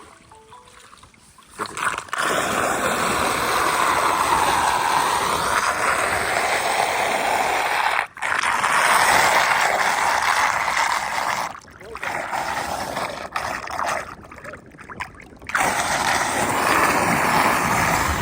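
Floodwater rushing and gurgling down into a street storm drain, a steady loud rush that starts about two seconds in and briefly dips twice.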